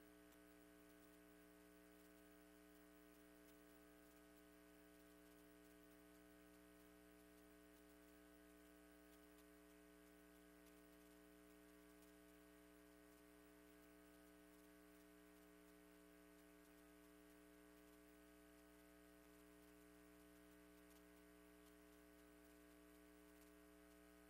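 Near silence with a faint, steady electrical hum made of several fixed tones, mains hum picked up in the recording chain.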